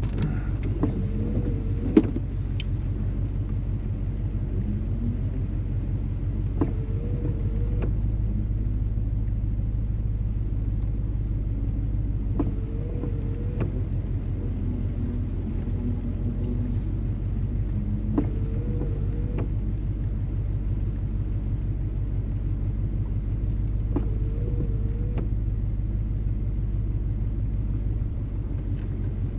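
Off-road 4x4 truck engine running steadily at low speed with a low rumble, joined about every six seconds by a faint short whine and a few light clicks.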